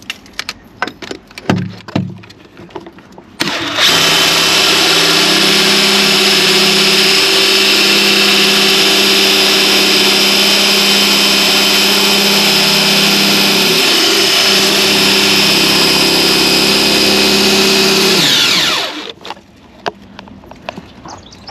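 Power drill driving a 1-1/8-inch hole saw on an extension to bore a hole: a few knocks, then the drill starts about three and a half seconds in, runs steadily at speed for about fifteen seconds, and winds down with falling pitch near the end, followed by more scattered knocks.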